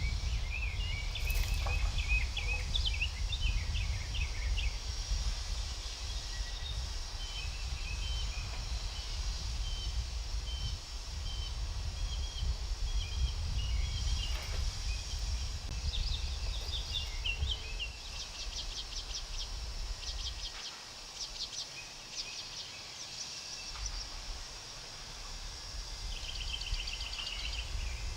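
Small birds chirping and calling, with many short, rapid chirps and trills, over a steady high hiss and a low rumble that drops away for a few seconds about three-quarters of the way through.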